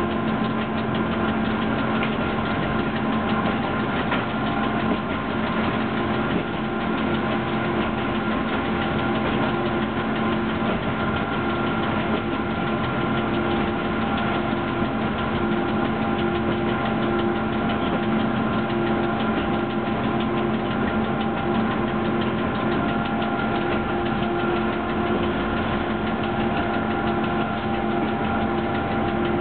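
Electric locomotive running under way, heard in its cab: a steady electric hum and whine from its motors and blowers, with several steady tones held throughout over the noise of the wheels on the rails.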